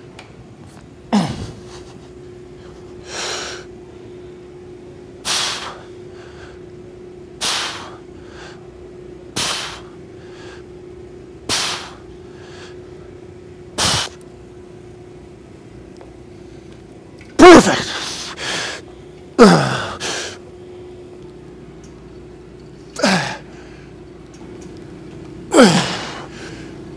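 A man's sharp, forceful exhales, one about every two seconds, in time with the reps of a heavy lift. From about two-thirds of the way in they become louder strained grunts that fall in pitch as the set gets hard.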